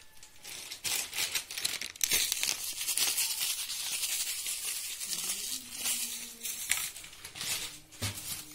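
Salt being sprinkled over raw sliced potatoes in a foil tray: a dry, crackling rustle of falling grains that builds about a second in and thins out near the end.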